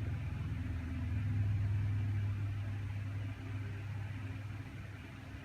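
A steady low machine hum with a faint hiss over it.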